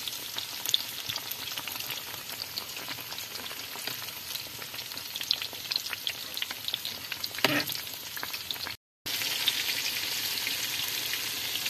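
Halved bananas deep-frying in hot oil in a pan, a steady sizzle full of fine crackles, with a metal spoon turning them now and then. The sound drops out for a moment about nine seconds in.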